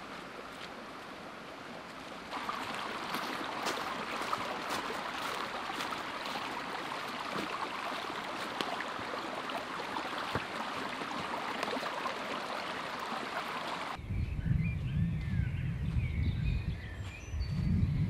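A small forest stream trickling and gurgling steadily. About fourteen seconds in it gives way to a low, uneven rumble with birds chirping over it.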